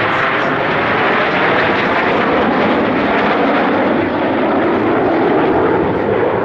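Formation of Aermacchi MB-339 jet trainers flying over, their Rolls-Royce Viper turbojets making a loud, steady rushing jet noise.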